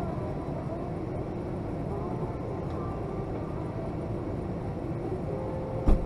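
Steady low rumble inside a Boeing 757-200 airliner cabin, with faint passenger chatter. A sharp thump comes just before the end, preceded by a brief steady tone.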